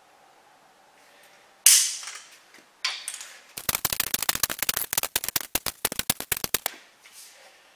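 Click-type torque wrench ratcheting on the main bearing cap bolts of a 5.9 Cummins 12-valve block, at the 75 ft-lb stage of torquing: two separate metallic knocks, then a rapid run of clicks, about ten a second, for some three seconds.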